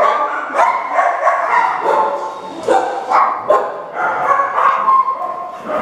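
Kennelled dogs barking and yipping over and over, several calls overlapping at different pitches.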